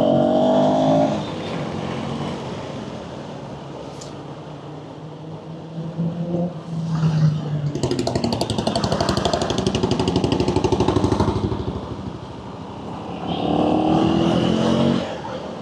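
Motorcycle engine running in traffic, rising in pitch as it accelerates near the start and again near the end, with a loud stretch of fast engine pulses in the middle.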